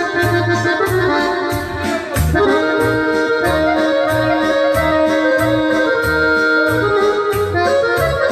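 Instrumental music with a steady low beat of about two thumps a second under pitched melody lines, and one long held note through the middle.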